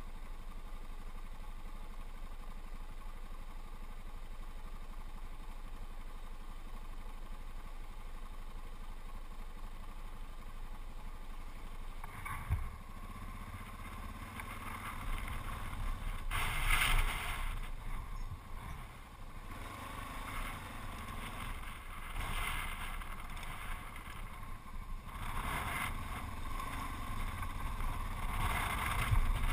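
Yamaha XT660Z Ténéré's single-cylinder engine idling steadily, then, after a knock about twelve seconds in, the motorcycle riding off along a gravel track, its engine sound rising and falling with gusts of wind noise on the microphone.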